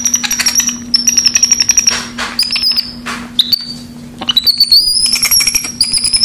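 Capuchin monkey giving a series of high-pitched trilling squeaks, some held for about a second as a thin whistle-like tone, others short.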